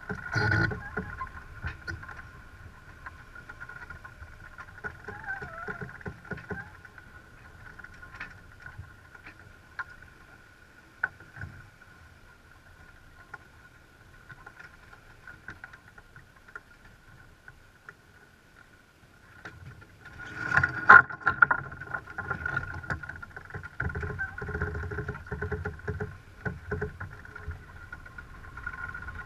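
Sailing yacht underway: water rushing and slapping along the hull with wind on the microphone, over a steady high whine. A short clatter in the first second as a crewman works a winch handle, and a louder spell of splashing and knocks about twenty seconds in.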